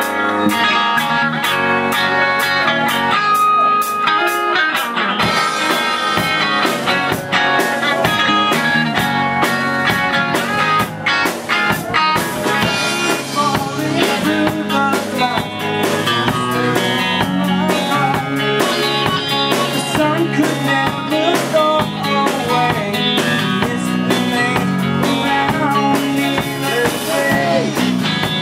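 Live band playing a rock song: acoustic and electric guitars over a drum kit.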